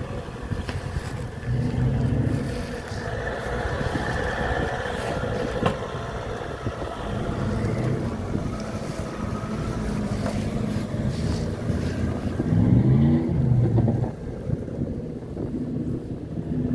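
Nissan Navara D40 pickup's engine running under load as the truck crawls over a rough, leaf-covered off-road track, its pitch rising and falling with the throttle, with quick revs around twelve to fourteen seconds in.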